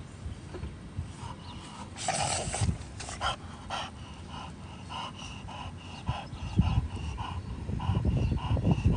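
French bulldog panting in quick, even breaths, about three a second. About two seconds in there is a short, louder rush of noise.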